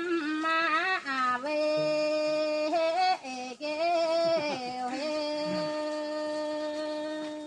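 A woman singing unaccompanied, one voice in slow phrases with sliding, ornamented notes and short breaks between them. The last note is held steady for a couple of seconds and stops right at the end.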